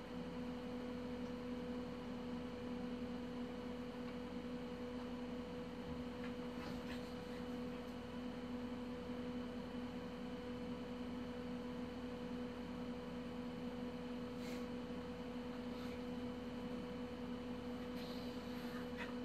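A steady low electrical hum with a few faint, brief ticks now and then.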